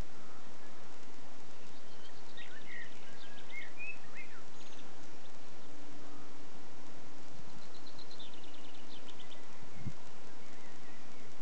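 Birds chirping in two short spells, over a steady outdoor background hiss, with one brief knock near the end.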